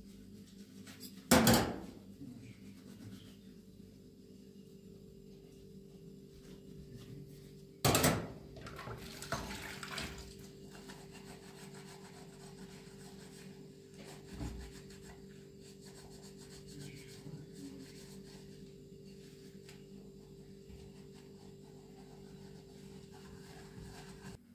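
Dishes being washed and handled at a kitchen sink: two loud clatters of bowls, about a second in and about eight seconds in, with faint scraping and rubbing of crockery between. A steady low hum sets in with the second clatter and holds until near the end.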